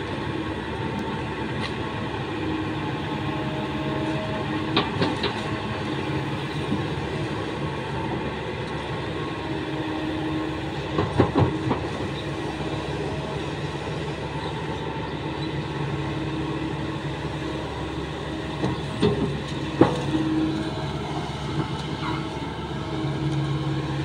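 Kobelco SK200 hydraulic excavator's diesel engine running steadily under work, with a few short knocks: a cluster about halfway through and another near the end.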